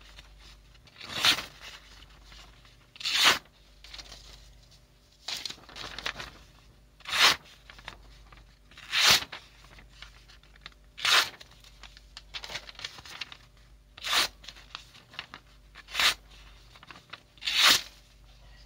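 A freshly sharpened AKM bayonet blade slicing through sheets of paper held in the air. Each cut is a short, crisp rasp, about ten cuts at roughly one every two seconds.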